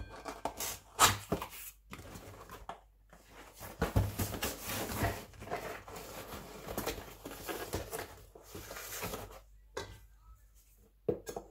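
Cardboard retail box being handled and turned over on a wooden tabletop: irregular scraping and rustling with a few sharp knocks.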